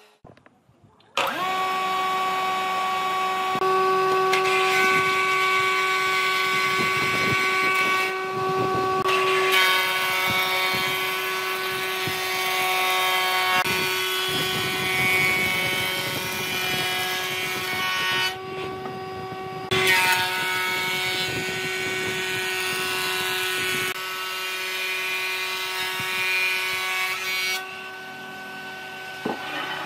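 Electric wood planer running, a steady whine over the rough noise of boards being planed, with chips flying off the cutterhead. It starts about a second in and drops out briefly a couple of times partway through.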